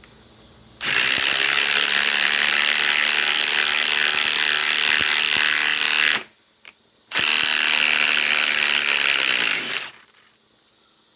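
Ryobi ONE+ HP compact cordless impact wrench hammering a roughly 4-inch lag screw into wood. It runs in two stretches, about five seconds, a brief pause, then about three seconds more, and winds down as it stops.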